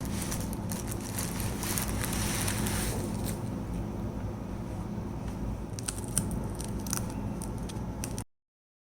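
Handling noise around a mechanical keyboard: rustling and scraping in the first few seconds, then a few scattered sharp clicks, over a steady low hum. The sound cuts out abruptly near the end.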